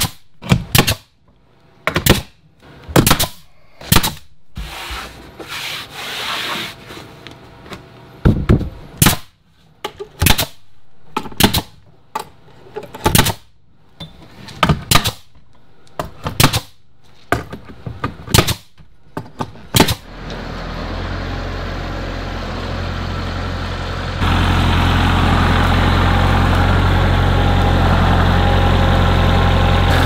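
Pneumatic nail gun firing a long series of sharp shots, about a second apart, as boards are nailed to wall studs. After about twenty seconds this gives way to a tractor's diesel engine running steadily, louder from about four seconds later.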